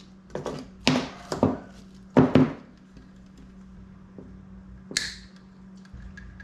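Small tools and parts handled on a wooden workbench: three quick clusters of knocks and taps in the first two and a half seconds, then a single sharp, hissy click about five seconds in, over a faint steady hum.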